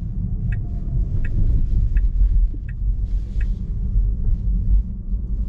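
Road and tyre rumble inside a Tesla electric car's cabin while driving. A turn-signal indicator ticks about once every three-quarters of a second and stops a little past halfway through.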